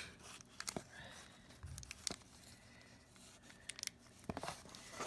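Cellophane wrapper of a baseball-card pack being peeled and torn open by hand: faint, scattered crinkles and crackles.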